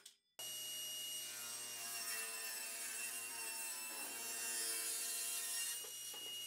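Table saw running steadily while a padauk board is fed through the blade, starting after a brief silence about half a second in.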